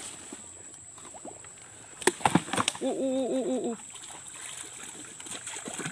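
Stream water sloshing and splashing around a person wading into a shallow muddy creek. About two seconds in come a few sharp knocks, followed by a short, wavering hoot-like call of a few notes lasting about a second.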